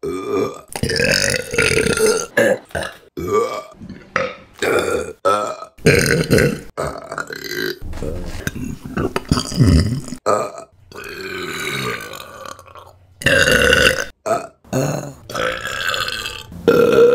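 Women burping, one belch after another in quick succession, with abrupt cuts between burps of differing pitch and length.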